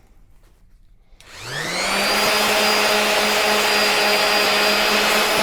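Electric power sander switched on about a second in, its motor spinning up with a rising whine and then running at a steady speed for a quick touch-up sanding of a wooden wedge.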